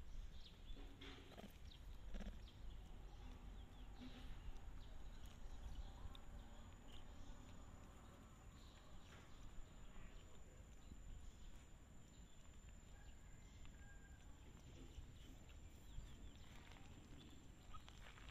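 Near silence: faint outdoor ambience with a low rumble, a few faint scuffs and ticks, and a thin steady high-pitched tone.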